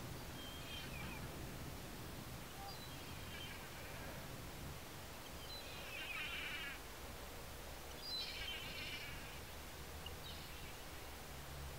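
Black kite giving about five high, quavering, bleat-like calls, each a second or less, the loudest two about halfway through.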